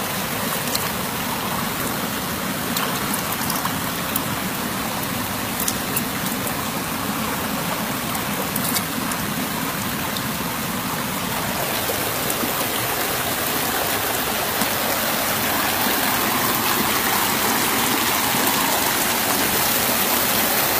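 River water rushing over rocks, a steady splashing flow with a few sharp clicks in the first half. From about halfway through the water grows louder and brighter, the sound of a small waterfall cascading into a pool.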